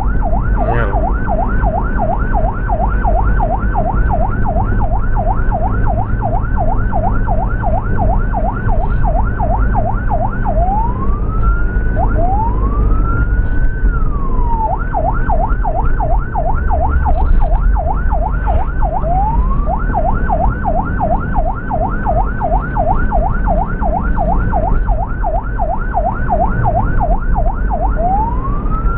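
Ambulance electronic siren switching between a rapid yelp, about four rising-and-falling sweeps a second, and a slow wail: slow sweeps about ten to fifteen seconds in, once more near twenty seconds and again near the end. A steady low rumble of engine and road noise runs underneath.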